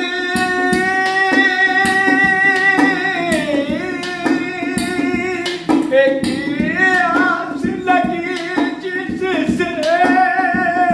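A male voice sustaining a long, ornamented note in a sad Hindi song, held steady at first, then dipping and wavering through melodic turns, over steady percussion and instrumental accompaniment.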